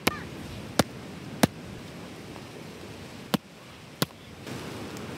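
A coconut being struck against a rock to crack it open: five sharp knocks at uneven intervals, over a steady background hiss.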